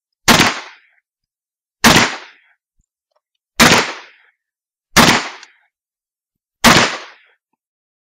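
Five .357 Magnum gunshots fired singly, roughly every one and a half seconds, each a sharp loud crack with a short fading tail.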